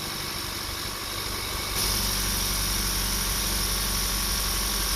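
Honda Accord four-cylinder engine idling steadily after a cylinder 1 misfire was cured with new spark plugs and an ignition coil, running smooth. About two seconds in, a louder steady hum and hiss comes in on top of the idle.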